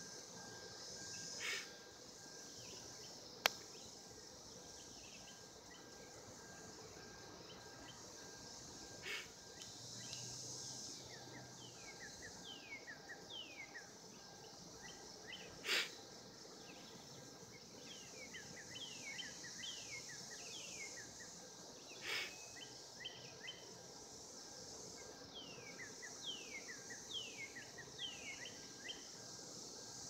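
Steady high-pitched drone of a cicada chorus, with many short falling chirps of a small bird and a few sharp clicks.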